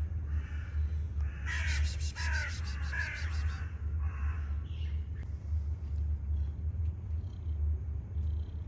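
A crow cawing three times in quick succession, starting about a second and a half in, with a rapid high chirping alongside the calls. A steady low rumble runs underneath.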